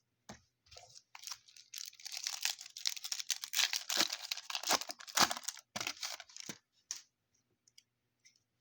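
Foil trading-card pack wrapper being torn open and crinkled, a dense crackling from about a second in to about seven seconds in, then a few faint clicks.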